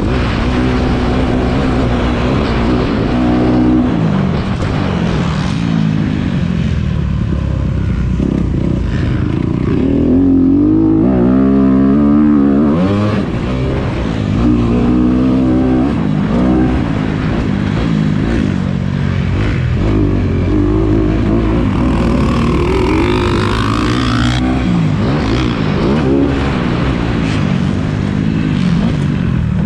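Dirt bike engine heard from onboard, revving hard and backing off over and over, its pitch rising and falling as it accelerates through the gears and shuts off for corners and jumps.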